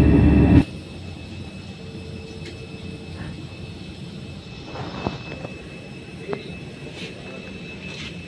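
A loud stretch of music cuts off about half a second in, leaving the steady hum of parked jet airliners with a thin, steady high whine, and a few faint clicks.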